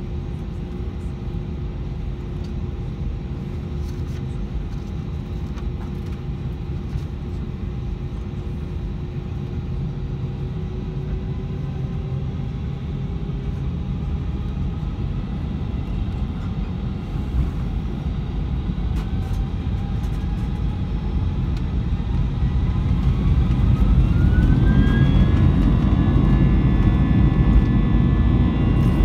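Airbus A320 jet engines heard from inside the cabin: a steady low rumble while the aircraft rolls on the ground, then a rising whine about two-thirds of the way through as the engines spool up toward takeoff thrust, growing louder.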